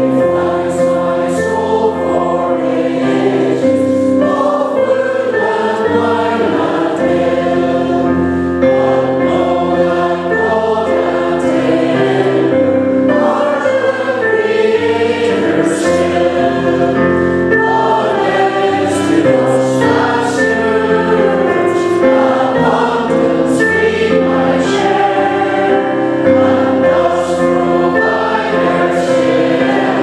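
Church congregation singing a harvest hymn together in unison, steadily and without a break, over sustained accompanying chords.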